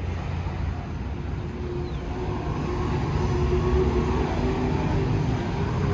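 Street traffic: the steady low rumble of car and truck engines going past, slowly getting louder.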